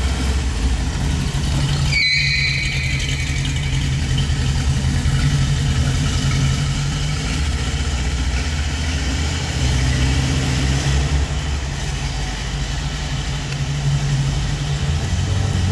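A 331 cubic inch V8 hot rod engine with Spin Tech mufflers runs at low speed as the roadster pulls away. About two seconds in there is a brief high squeal.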